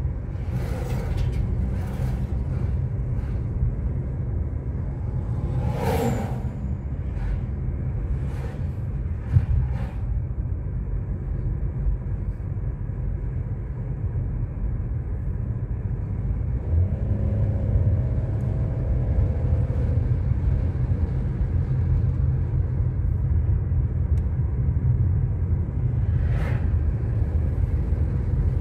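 Steady low rumble of a car being driven, engine and tyre noise, with a few short knocks and rattles in the first ten seconds and another near the end.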